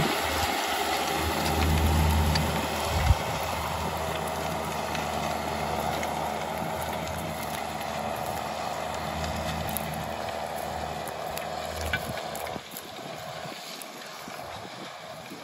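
John Deere 6920 tractor's six-cylinder diesel engine working under load as it pulls a stubble cultivator through the field, fading steadily as the tractor moves away. The implement's tines and rear roller add a mechanical rattle, with a few knocks, and the sound drops a step lower about twelve seconds in.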